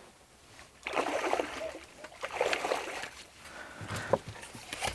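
Water splashing and sloshing as a landing net holding a fish is pushed and lifted through the lake surface, with water streaming off the rubber-coated mesh. It comes in several irregular bursts after a quiet first second.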